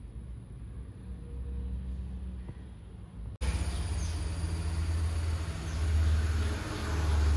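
A low steady hum, then, after an abrupt cut about three seconds in, louder steady outdoor background noise with a deep rumble and a hiss.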